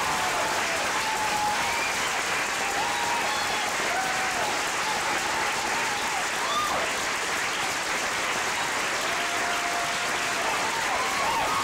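Large audience applauding steadily, with scattered cheering voices rising and falling over the clapping.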